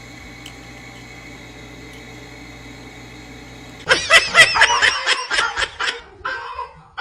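A steady low hum for about four seconds, then a loud burst of rapid, high-pitched laughter lasting about two seconds, with a shorter burst just before the end.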